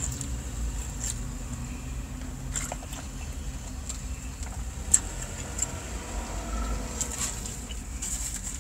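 Eating a salad inside a car: a plastic fork clicking and scraping against a plastic salad bowl, and chewing, with scattered sharp clicks, the loudest about five seconds in. A steady low rumble of the car interior runs underneath.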